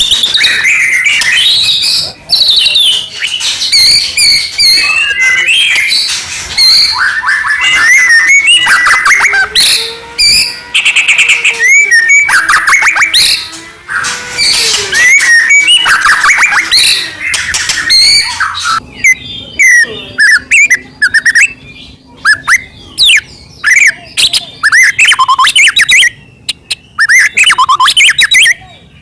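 White-rumped shama (murai batu) singing loudly and without pause, a fast, varied stream of whistles, trills and chattering notes. About two-thirds of the way through, the song changes to sharper chips and quick up-and-down whistles with short gaps between phrases.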